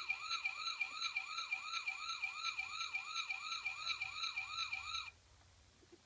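Toy police car's electronic siren: a fast warble of about three rises a second over a steady high tone, cutting off suddenly about five seconds in.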